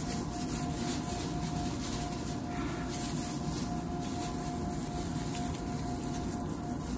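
Steady background hum with a constant tone, under faint crinkling and smacking from eating chicken with plastic-gloved hands.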